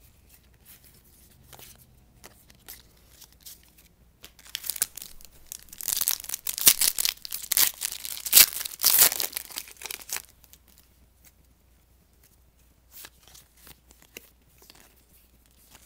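Plastic wrapper of a trading-card pack being torn open and crinkled, a dense crackling run of about five seconds in the middle, with faint scattered clicks of cards being handled before and after.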